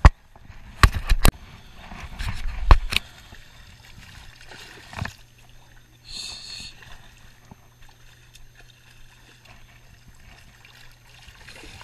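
Water sloshing and splashing around anglers wading in a shallow river while a striped bass is reeled in. A few sharp knocks come in the first three seconds.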